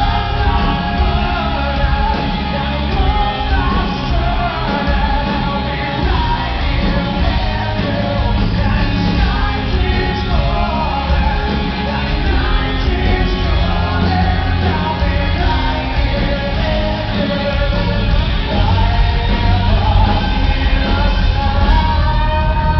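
Live rock band playing with a male lead vocal, recorded from the audience in a large hall.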